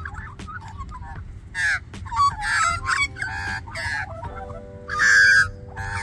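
Birds calling: several loud, harsh squawks, the loudest about five seconds in, with softer warbling calls between them.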